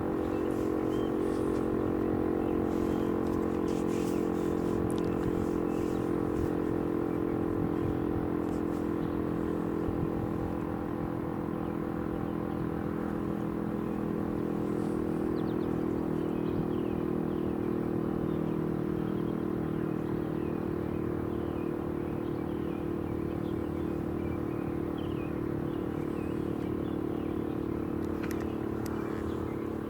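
Federal Signal STH-10 dual-tone outdoor warning siren sounding a steady chord of tones during a test, holding at a near-constant level. Faint high chirps sit under it in the second half.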